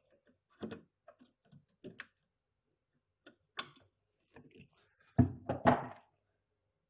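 Wrench working the plastic nut at the bottom of a toilet's fill valve under the tank: scattered light clicks and knocks, then a louder clatter of several knocks about five seconds in.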